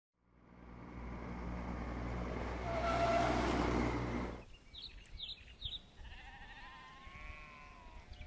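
Sound effects of an animated logo. A motor vehicle's engine noise swells in and cuts off abruptly about four seconds in. A few short chirps follow, then a wavering bleat.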